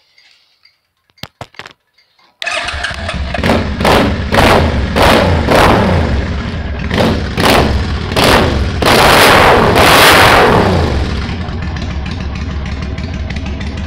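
A Suzuki Volusia VL800's V-twin engine bursts into running after a few faint clicks and is revved in a string of short throttle blips and one longer rev, then settles to a steady idle. It is the motorcycle's first run after sitting torn down all winter.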